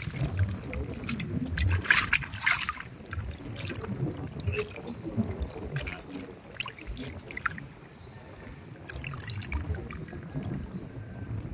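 Hands kneading and rinsing cleaned peanut worms in a steel basin of water: irregular splashing, squelching and dribbling. The loudest, busiest splashing comes about two seconds in.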